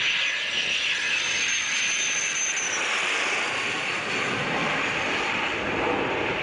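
Single-engine F-16 jet with gear down passing low overhead on landing approach, then heading away. Its engine gives a steady loud rush with a high whine that drops in pitch about two and a half seconds in as it goes past.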